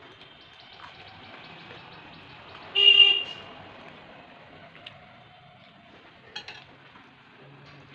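A vehicle horn sounds once, a short steady toot of about half a second, about three seconds in, over faint clicks and mouth sounds of someone eating rice by hand.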